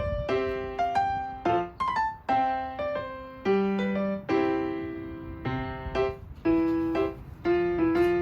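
Background piano music: an unhurried melody of single notes and chords, each struck and left to ring and fade.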